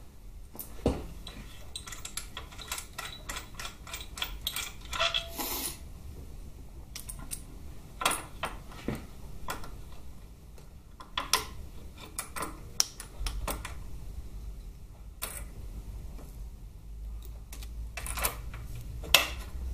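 Small metal parts clinking and tapping as a motorcycle head steady bar and its bolts and washers are fitted to the bracket by hand: scattered clicks, a quick run of them a few seconds in, and the loudest clink near the end.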